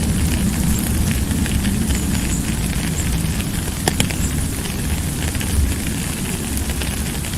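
Steady rain falling: a dense, even hiss with a low rumble beneath it and scattered drop ticks, and one sharp click about four seconds in.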